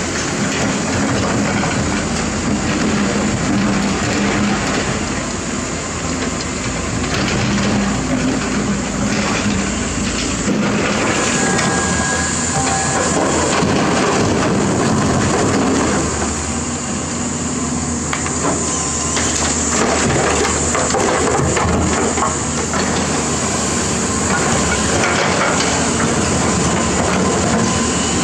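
Diesel engine of an Isuzu dump truck running as it rolls slowly over gravel; about ten seconds in, a hydraulic excavator's engine and its bucket scraping and crunching through rocky soil and stone.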